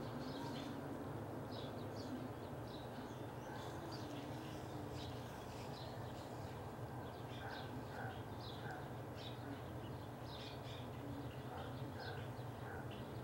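Small birds chirping on and off in short, irregular calls over a steady low hum.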